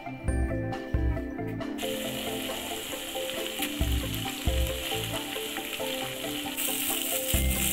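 Ground chili and shrimp-paste mixture with prawns frying in hot oil in a pan, sizzling steadily from about two seconds in as a spatula stirs it, the sizzle growing louder near the end. Background music plays throughout.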